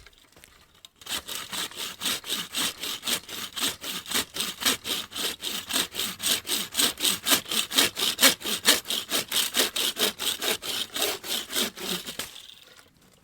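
Wooden frame bucksaw cutting through wood in a steady run of rapid back-and-forth strokes, about four or five a second. The strokes start about a second in and stop about a second before the end.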